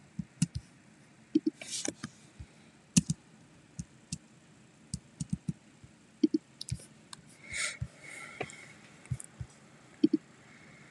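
Irregular small clicks and light knocks, with a couple of brief rustles about two seconds and seven and a half seconds in.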